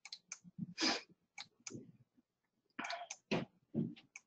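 Scattered soft clicks from a computer, heard as the presentation is moved on through its slides, with a few faint brief breaths or mouth noises at the microphone in between.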